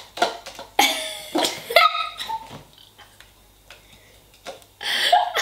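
A girl and a woman laughing and squealing in short, high bursts, dying down in the middle and breaking out again near the end.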